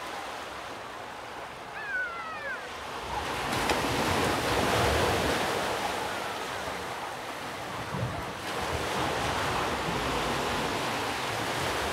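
Sea waves washing on a rocky shore, the surf swelling louder a few seconds in and again later, with wind on the microphone.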